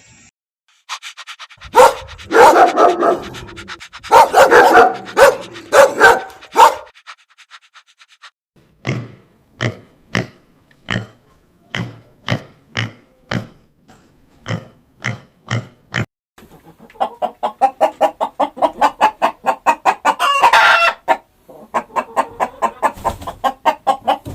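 Farm animal calls of several kinds in turn. First a few loud, rough calls, then a run of short low calls about one every half second, then rapid repeated calls, several a second, near the end.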